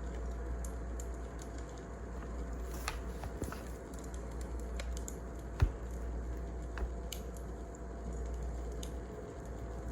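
Wood fire crackling: sparse sharp pops and clicks over a steady low rumble, with one louder knock a little after halfway.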